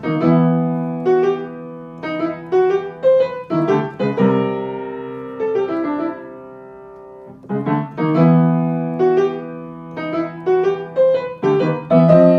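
Background piano music: a slow melody over struck chords that ring out and fade. The phrase starts over about halfway through.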